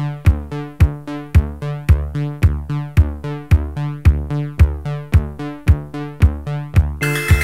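Electronic background music: a steady drum-machine kick about twice a second under a repeating synth bass line. A brighter synth layer comes in near the end.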